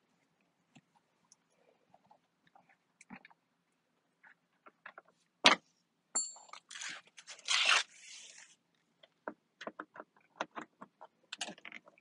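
Hand tools and small metal parts being handled: scattered light clicks, a sharp click about halfway through, then a couple of seconds of clinking and rattling.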